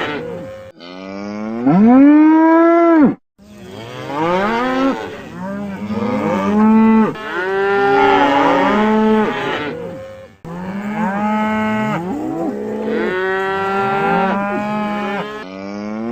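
Cattle mooing, one long call after another with several calls overlapping at times, and the sound cutting off abruptly between separate recordings.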